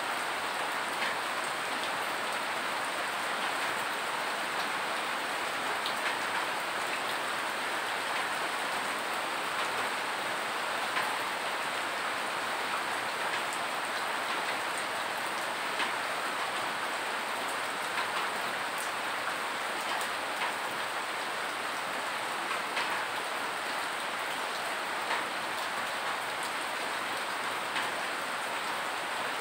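Steady rain falling, an even hiss with scattered single drops ticking out above it.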